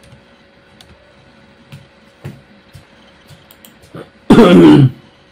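A few faint, scattered clicks, then about four seconds in a short, very loud burst of a person's voice close to the microphone.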